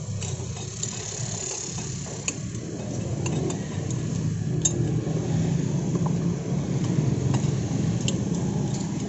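Road traffic running by, its low rumble growing louder about a third of the way in, with occasional light clicks of a steel knife against a ceramic plate as steamed siomay is cut up.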